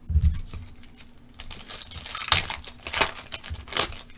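A trading-card pack wrapper being torn open and crinkled in the hands: a soft thump near the start, then three or four crackly rips and rustles.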